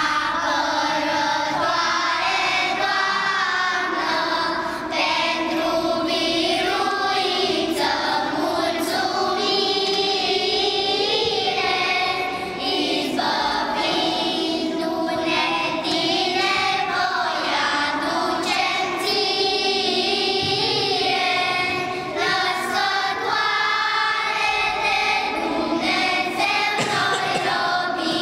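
Children's choir singing a song together in unison, with sustained, wavering sung notes throughout.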